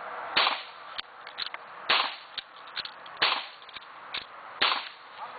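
Volcanic lever-action pistol fired four times in rapid succession, about a shot and a half apart. Lighter clicks between the shots come from the lever being worked to chamber the next round.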